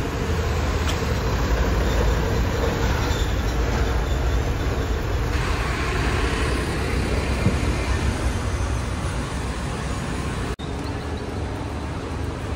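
Steady low rumble of street traffic and vehicle engines, with a brief dropout about ten and a half seconds in.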